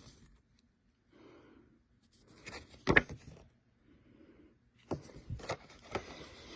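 Paper inserts and packaging being handled: a few rustles and sharp taps about three seconds in, then a longer run of rustling and clicks near the end.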